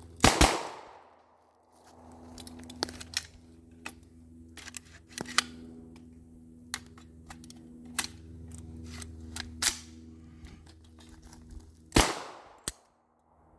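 Auto-Ordnance Thompson M1 submachine gun in .45 ACP firing: two quick shots right at the start, then metallic clicks of the action being worked, and another single shot about twelve seconds in. The gun stops after a shot or two each time, jamming, which the owner thinks is rounds hanging up on the feed ramp.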